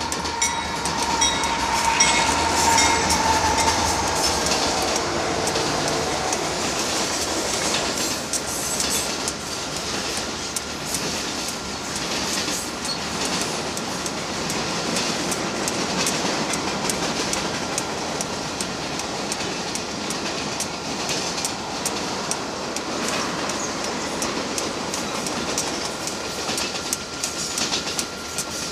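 Canadian Pacific diesel-hauled freight train passing close by. Its locomotives go by in the first few seconds with a falling whine, then a long string of hopper and tank cars rolls past with the rapid clickety-clack of wheels over rail joints.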